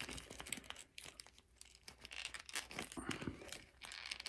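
Faint rustling and small scattered clicks of a McFarlane Toys Death Metal Batman plastic action figure being handled and posed, its jacket and limbs rubbing against the fingers.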